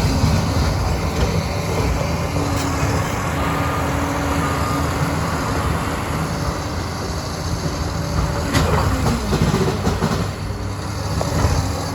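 Liebherr 746 crawler dozer running steadily, its diesel engine droning under a clatter of steel tracks, with a run of louder clanks and squeaks about nine seconds in.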